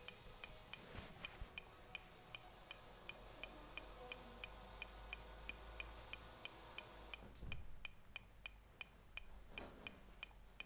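Honda car's hazard-light flasher ticking steadily with its emergency lights blinking, faint clicks at about three a second. A brief low thump comes about seven and a half seconds in.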